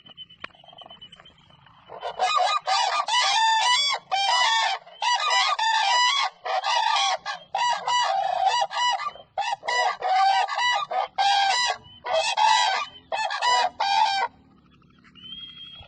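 Cranes (koonj) calling loudly, a rapid run of honking trumpet calls in bursts. It starts about two seconds in and stops about a second before the end.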